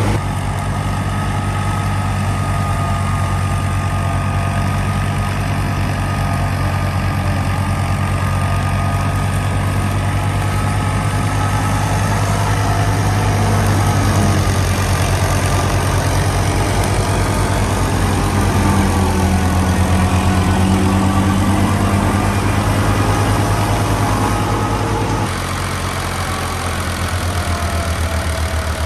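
Alghazi tractor's diesel engine running steadily, working a wheat thresher, with a faint whine that slowly wavers in pitch. About 25 seconds in, the engine note drops a little and settles lower.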